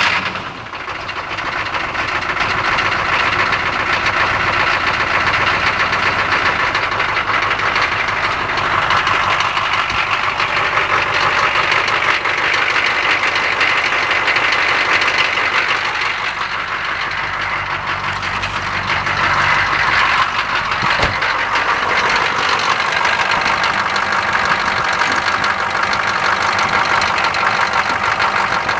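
GM 6.2-litre V8 diesel running steadily just after a cold start, warming up on a freezing morning, with a brief dip in the first second as it catches.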